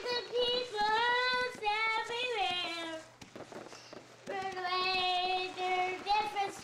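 A young boy singing, holding long notes in two phrases with a break of about a second between them.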